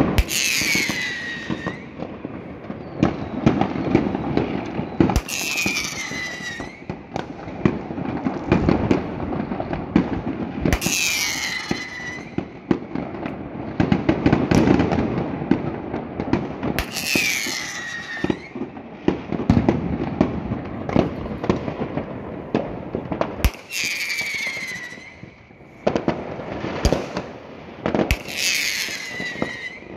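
New Year fireworks and firecrackers going off across a city, a steady run of sharp bangs and crackling. A high whistle that falls in pitch sounds six times, about every five or six seconds.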